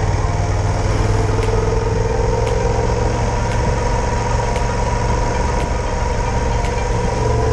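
Yamaha XT1200Z Super Ténéré's parallel-twin engine running at a steady pace while the bike is ridden along.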